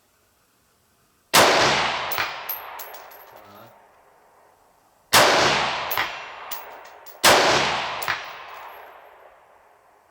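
Three rifle shots, the second and third close together. Each crack is followed by a long echo that rolls away over a couple of seconds.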